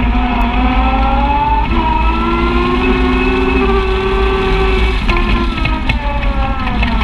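Side-by-side UTV engine running under way on a dirt trail, its note rising and falling with a few abrupt pitch changes, over a heavy low rumble of wind and tyres on the mounted microphone. A couple of light knocks come near the end.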